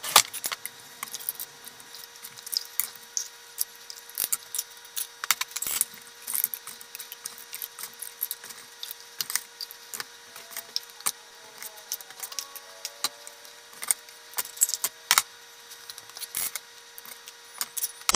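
Irregular light clinks and taps as a ladle scoops pickle slices and brine from a plastic bowl into a glass mason jar, knocking against the bowl and the jar.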